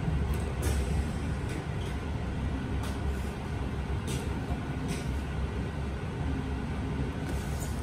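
An RER A commuter train stands at a station platform, heard from inside the car: a steady low rumble from its running equipment, with a few short sharp clicks scattered through it.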